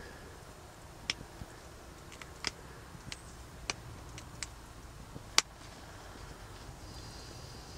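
Pressure flaking a broken stone arrowhead with an antler tine against a leather pad: about ten sharp, irregularly spaced clicks as small flakes pop off the edge of the point, the loudest one about five seconds in. This is the stage of thinning and reshaping the base of the point.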